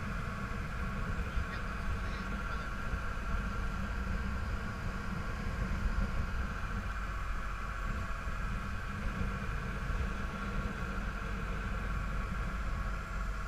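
A passenger boat's engine running steadily under way, with the rush of the wake churning along the hull.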